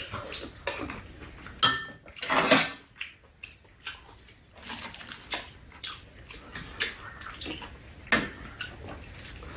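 Metal spoons and chopsticks tapping and scraping against bowls on a metal tray table during a meal, in scattered clinks; one clink about a second and a half in rings briefly, and a sharp tap comes near the end.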